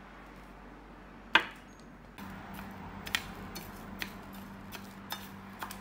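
A metal spoon stirring rice on a plate, clinking and scraping against the plate over and over. There is a single sharp knock about a second and a half in.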